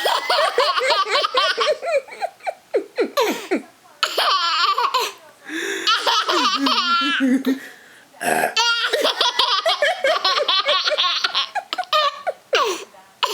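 A baby laughing hard, belly laughs in repeated high-pitched bouts broken by short pauses for breath.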